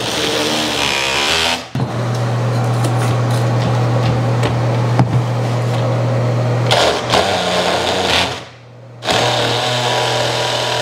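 Cordless oscillating multi-tool running steadily with a buzz as it undercuts a wooden door jamb. It stops briefly about one and a half seconds in, and again for about a second near the end, then starts again.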